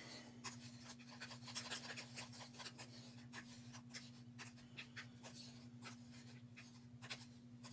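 Faint, irregular scraping and tapping of a wooden craft stick stirring acrylic paint and Floetrol in a small plastic cup, the mix not yet fully blended. A steady low electrical hum runs underneath.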